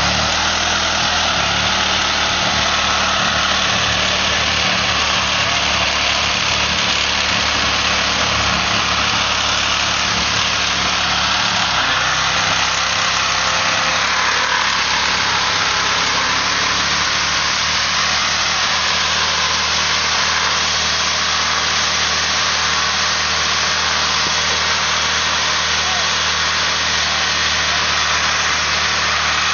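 A car's engine held at steady revs during a burnout, under a loud, even hiss from the spinning tyres, with no let-up.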